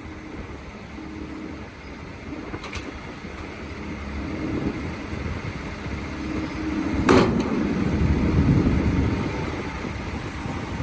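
Doosan DX140LCR-3 excavator's diesel engine running, growing louder from about the middle as the machine works, with a sharp clank about seven seconds in.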